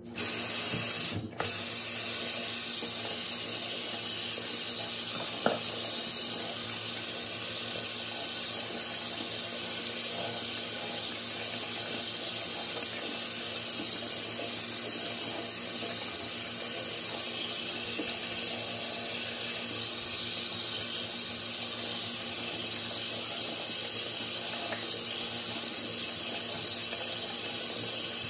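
Bathroom sink faucet turned on, then tap water running steadily into the basin, with a brief break about a second in. A makeup sponge is being rinsed under the stream.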